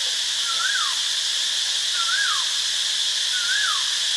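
Cicada's steady, shrill buzz. A bird's short whistle, rising then falling, repeats three times over it, about every one and a half seconds.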